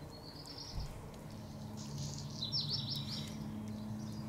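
A small songbird singing: a short rising phrase at the start, then a quick run of repeated chirps about two to three seconds in, over a steady low hum.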